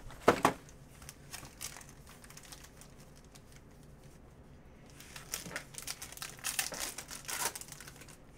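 Foil wrappers of 2019 Panini Prizm Baseball hobby packs crinkling as a stack of packs is handled, with a loud crinkle just after the start. About five seconds in comes a run of crinkling and tearing as a pack is ripped open.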